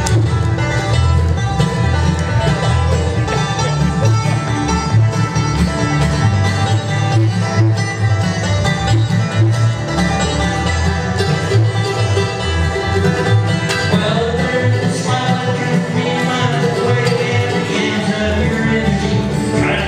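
Bluegrass band playing live: banjo, acoustic guitar, mandolin and upright bass together, with a steady driving bass line under busy picked notes.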